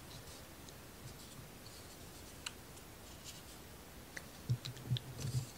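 Thin laser-cut wooden model pieces being handled, with faint clicks and light rubbing, and a few louder clicks and soft knocks from about four seconds in.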